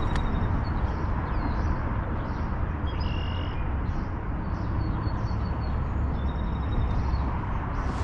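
Steady low rushing of the fast, high river and wind, with faint short bird calls now and then.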